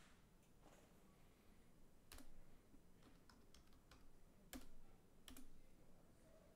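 Faint computer keyboard typing: a username keyed in and the Enter key pressed, as a handful of separate key clicks with three sharper ones about two, four and a half and five seconds in.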